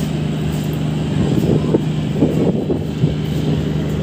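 Steady low hum of a train, with irregular rattling and a few knocks between about one and three seconds in.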